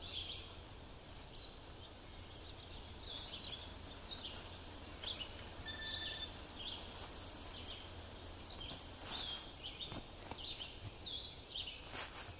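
Small birds chirping in the woods in short, repeated notes. A few sharp scrapes of a digging tool in the soil come near the end.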